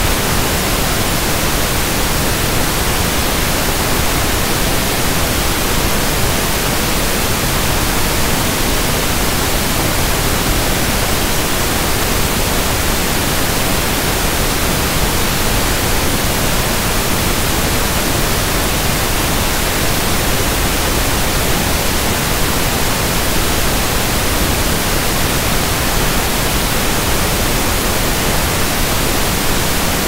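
Pink noise test signal: a steady, even hiss spread across the whole audible range, unchanging throughout. It is the kind of signal used for burning in or warming up loudspeakers.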